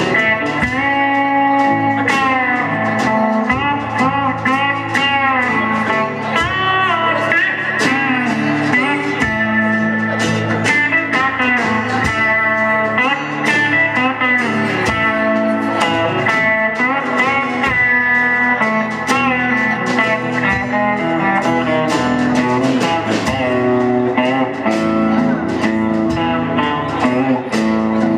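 Honky-tonk country band playing an instrumental break: a lead guitar solo with bending notes over bass and a steady drum beat.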